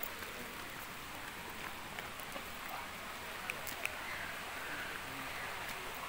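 Steady rush of a forest stream flowing over rocks, with faint distant voices and a few light clicks about halfway through.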